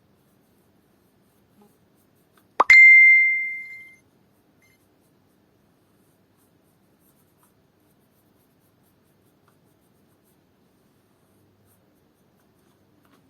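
A single bright ding, just after a small click, ringing at one clear pitch and fading out over about a second; otherwise near quiet.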